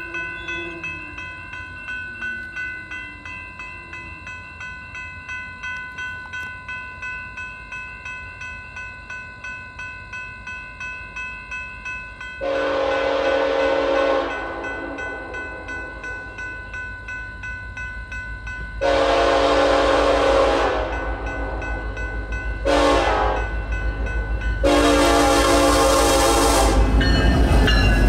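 A railroad crossing bell rings steadily with an even pulse while an approaching Norfolk Southern freight locomotive sounds its horn in the grade-crossing pattern: long, long, short, long. The last blast is held as the locomotive's low rumble grows and it reaches the crossing.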